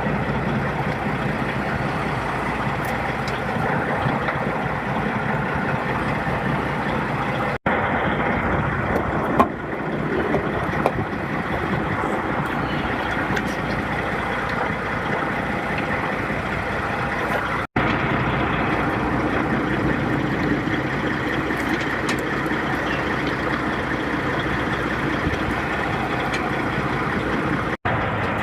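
Heavy truck's diesel engine running steadily, broken by three brief gaps.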